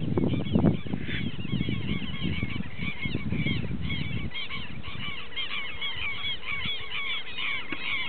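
Birds calling continuously in a chorus of short, high, arched calls, several a second and overlapping. A low rumbling noise runs underneath and stops about four seconds in.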